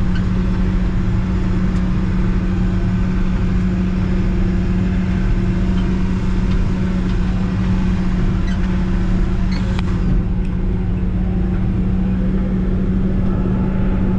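Backhoe's diesel engine running at a steady speed while the machine drives along, heard from inside its closed cab as an even hum, with a few faint clicks.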